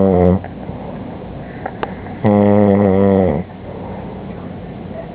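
Snoring: one snore tails off just after the start and another, about a second long and held at a steady pitch, comes a little over two seconds in, with quieter breath noise between.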